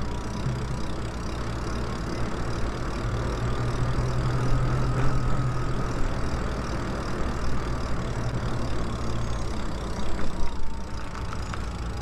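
Electric bike riding along pavement: a steady low rumble of wind and tyres with a faint motor whine that slowly rises and falls in pitch with speed. A few short knocks about ten seconds in.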